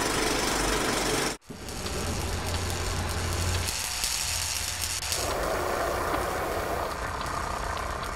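A steady mechanical running sound cuts off abruptly about a second and a half in. It is followed by a continuous sizzling, crackling hiss of sparks from metal being cut or burned.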